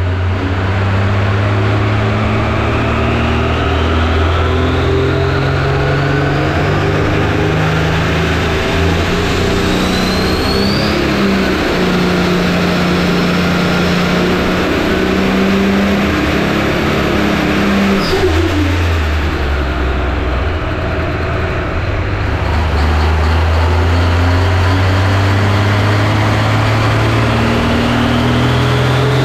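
Turbocharged pulling-tractor engine running under load on a dynamometer, its pitch climbing steadily for about fifteen seconds, dropping sharply with a click around eighteen seconds, then climbing again. A high rising whine rides over the engine note.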